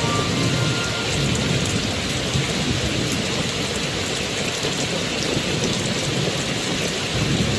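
Steady rain falling, with a low rumble of thunder underneath.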